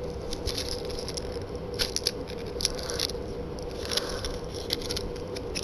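Handling noise: scattered light clicks and scrapes as the camcorder or its packaging is worked open by hand, over a steady hum.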